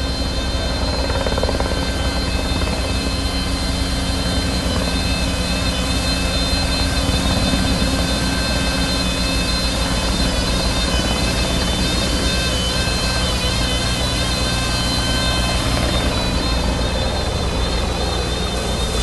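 Ponsse forwarder with a firefighting water tank running steadily, its diesel engine a constant low drone with several steady high-pitched whining tones from the machine's pump, over a hiss of spraying water.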